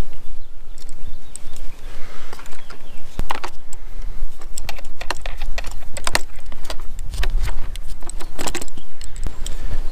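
Small metal mounting hardware clicking and clinking against a wooden post as it is handled and fitted by hand: many short, irregular clicks over a steady low rumble.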